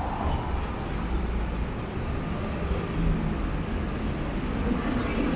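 City street traffic: a steady rumble of cars and vans driving past, swelling a little near the end as a vehicle goes by.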